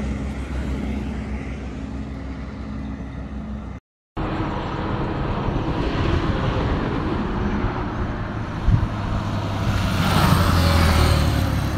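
Small single-cylinder commuter motorcycle engines, a Hero HF Deluxe and a Bajaj Platina 110, running hard in a drag race, over road and wind noise. The sound cuts out for a moment about four seconds in. Near the end it grows louder as a motorcycle approaches and passes close.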